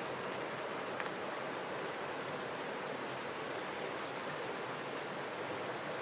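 Stream water flowing past grassy banks, a steady even rush with no change.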